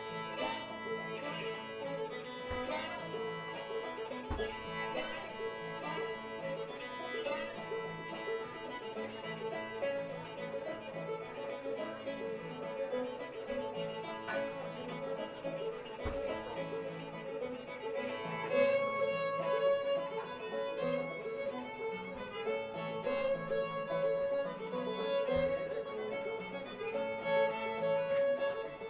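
Old-time string band playing a tune live, the fiddle leading over guitar and banjo. It gets louder and fuller about 18 seconds in.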